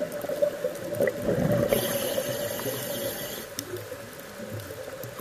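A scuba diver breathing through a regulator, heard underwater: gurgling exhaled bubbles, then the hiss of an inhale about two seconds in that lasts about a second and a half.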